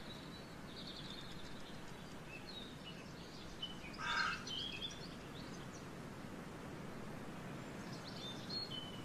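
Small birds chirping and calling here and there over a steady outdoor background hiss, with one louder, brief sound about four seconds in.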